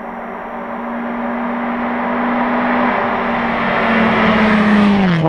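Rally car approaching at speed, its engine note holding steady and growing louder, then dropping sharply in pitch near the end as it goes past.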